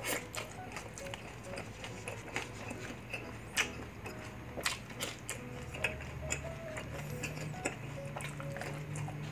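Close-miked chewing and mouth sounds of a person eating, with sharp clicks scattered through, over soft background music with a light ticking beat.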